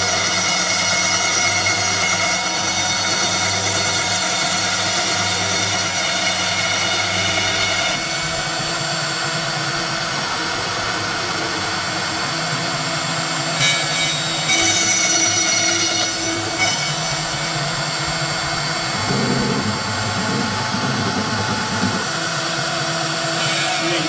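Homemade three-axis CNC router engraving lettering: its spindle motor runs steadily with a high whine, and the sound shifts every few seconds as the machine moves from stroke to stroke.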